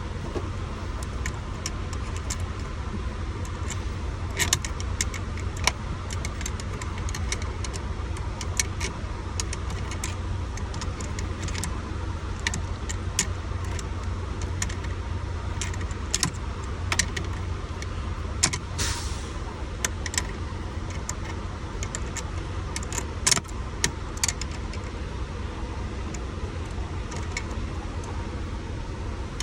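Scattered small clicks and clinks of hand tools and parts being worked at a truck's steering column, over a steady low engine rumble. A brief hiss comes about two-thirds of the way through.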